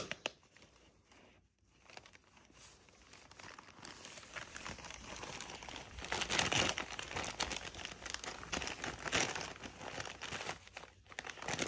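Wrapping paper crinkling and tearing as a dog works at a wrapped gift with its mouth and paws. Nearly silent for the first few seconds, then rustling and ripping that grows louder and keeps on.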